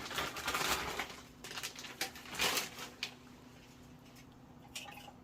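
Irregular rustling and crinkling handling noises over the first three seconds, then a quieter stretch with a faint steady hum and a single click near the end.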